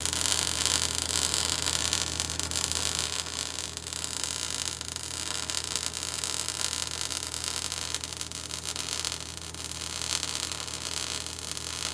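Steady hiss with a low electrical hum underneath, switching on abruptly and cutting off suddenly.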